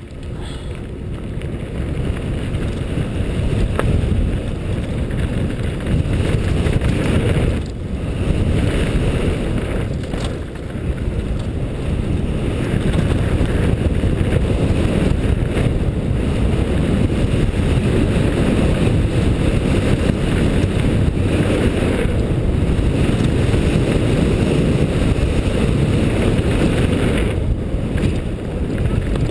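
Steady wind rumble on a helmet-mounted GoPro's microphone during a fast mountain-bike descent, mixed with tyres rolling over loose gravel and rock. It eases briefly about eight seconds in, again near ten seconds, and shortly before the end.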